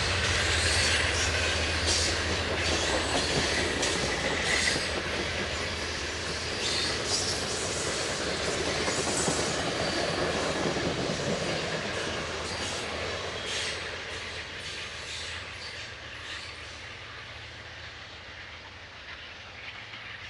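Amtrak passenger train rolling past, its wheels clicking over the rail joints. The sound grows steadily fainter as the train moves away.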